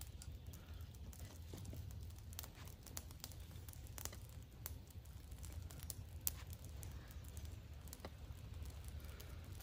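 Small wood campfire crackling faintly with scattered sharp pops, while sticks are shifted on it by hand.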